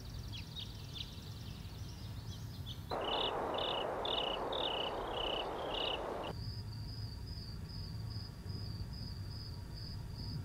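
Night ambience of crickets chirping in a steady pulsing rhythm over a low hum, with shorter, irregular chirps at first. About three seconds in, a rushing noise swells in and cuts off suddenly some three seconds later.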